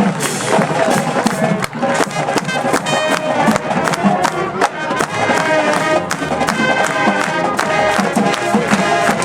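High school marching band playing: brass horn line carrying the tune over a drumline keeping a steady beat.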